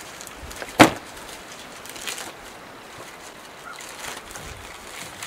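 A deflated inflatable kayak being laid out on a rug-covered wooden deck: one sharp slap a little under a second in as the heavy folded hull drops, then faint rustling as it is spread flat.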